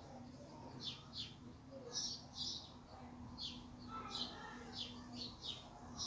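Small songbird chirping: about ten short, high chirps in irregular bursts, several coming in quick pairs or runs of three.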